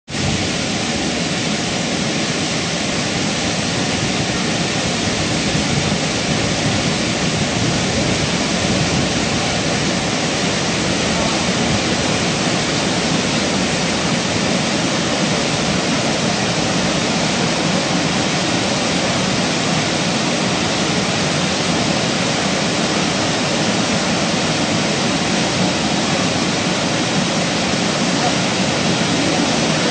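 Waterfall plunging into a pool, with the creek running high: a steady, even rush of water.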